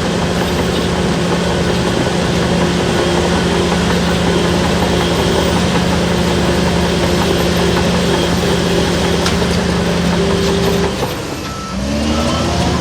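Shantui DH17-C3 bulldozer's diesel engine running steadily under load. About eleven seconds in it drops off, then revs back up with a rising pitch near the end.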